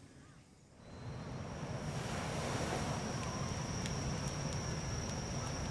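Sea surf and wind rushing on the microphone, fading in about a second in, with an insect's steady high-pitched call running over them.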